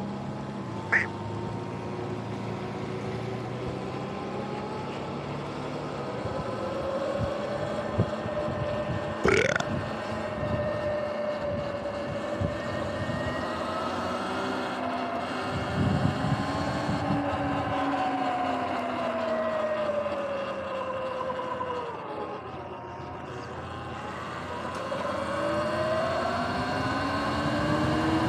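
Sur-Ron electric dirt bike riding on wet pavement: its motor whines, the pitch sliding down as it slows past the middle and climbing as it speeds up near the end, over a steady hiss of tyres on the wet road. A couple of short sharp clicks come through, one about a second in and one about nine seconds in.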